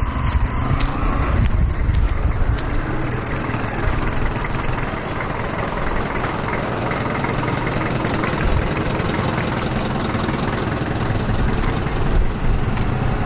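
A motor vehicle's engine running close by, a steady low rumble, with a thin high-pitched whine above it that comes and goes.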